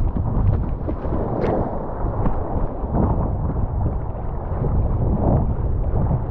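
Wind buffeting a camera microphone worn on a dog's harness: a steady low rumble, with soft, irregular thumps.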